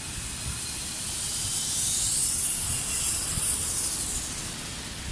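Zip line trolley whizzing along the steel cable as riders come in: a high hiss that swells and then fades.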